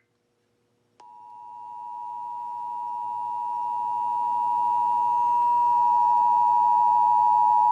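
Emergency Alert System attention signal: the steady two-tone alarm (853 Hz and 960 Hz sounded together) played over a broadcast radio. It starts about a second in after a short silence and grows louder. It marks the start of the alert, here a Required Monthly Test, and comes just before the spoken message.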